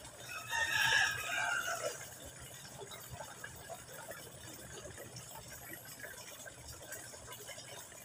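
A rooster crowing once in the first two seconds, one long call that falls away at the end. After that, a faint steady trickle of water from a small fountain jet falling into a pond.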